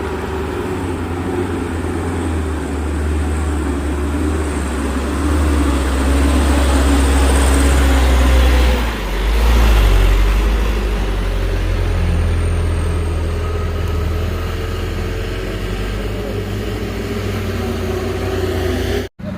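Heavy truck diesel engine labouring up a steep climb, its deep drone swelling louder mid-way, dipping briefly about nine seconds in and then picking up again. The sound cuts out abruptly just before the end.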